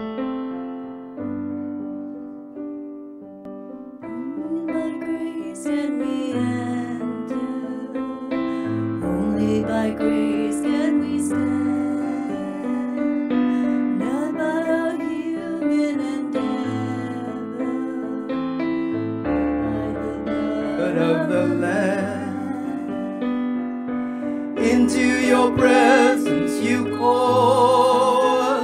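Worship song on an electric keyboard with a piano sound and an acoustic guitar, a man and a woman singing together into microphones. The voices come in about four seconds in after a short keyboard introduction and grow louder near the end.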